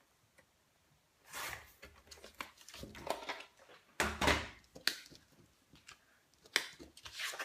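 Paper being cut on a sliding-blade paper trimmer, with the blade scraping along through the paper. This is followed by a heavy knock about four seconds in as the trimmer is set down, then clicks and rustling as cardstock pieces are handled.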